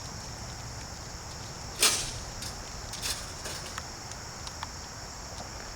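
Insects chirring steadily and high-pitched, with one sharp clatter about two seconds in and a few lighter clicks after it.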